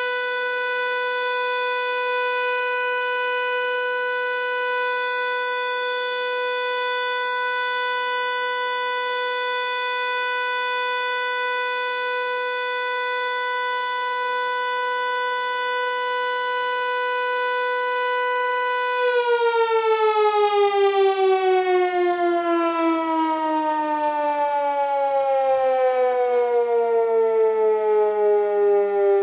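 Hörmann HLS 373 high-performance civil-defence siren sounding a steady, loud tone rich in overtones. About 19 seconds in, its pitch begins to slide steadily down as the siren winds down, with a pulsing in the loudness.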